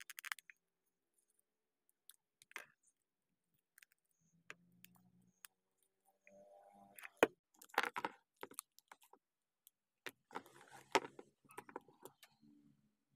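Hard plastic parts of a Marvel Legends Thanos action figure being handled and fitted: scattered light clicks and rattles as a hand piece is pushed onto its peg and the figure is posed with its sword, with two sharper clicks about seven and eleven seconds in.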